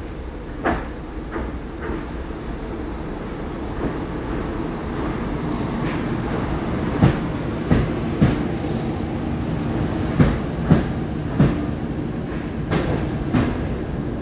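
EP2K electric locomotive and its passenger coaches rolling slowly past on arrival, over a steady low rumble and hum. The wheels clack over rail joints about a dozen times, often in pairs half a second apart.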